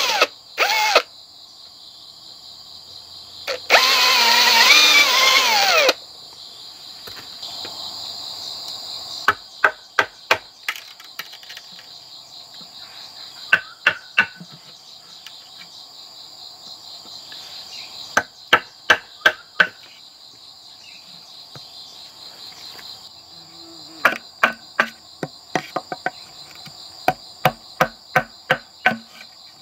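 Cordless drill boring into a wooden post, running briefly at the start and again for about two seconds a few seconds in, its motor pitch wavering under load. Then clusters of sharp knocks and taps as a metal rod chips the cut wood out of the hole, over a steady high drone of crickets.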